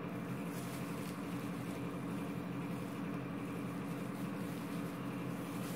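A steady low hum holding one pitch throughout, with no knocks or clicks over it.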